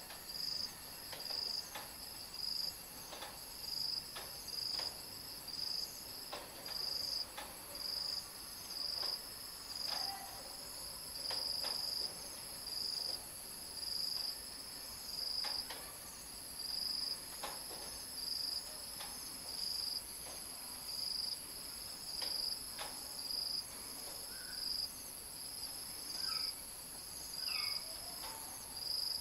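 Insects chirping: a steady high-pitched trill with a second, lower chirp pulsing about once a second over it. A few faint clicks, and some short bird-like chirps near the end.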